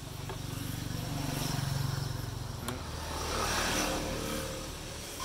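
Komatsu Zenoah SZ267EZ brush cutter's 26cc two-stroke engine idling steadily and smoothly, with a brief rustle of handling about three seconds in.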